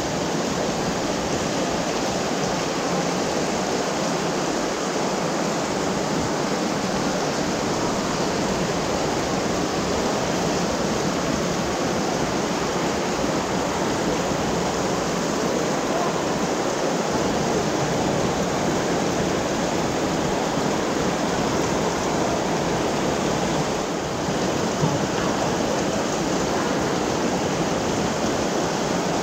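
Heavy tropical rain pouring down steadily, a dense, even hiss with no let-up.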